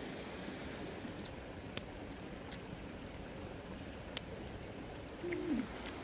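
A wood fire crackling with a few sharp pops over a steady low hiss, and a brief hummed voice near the end.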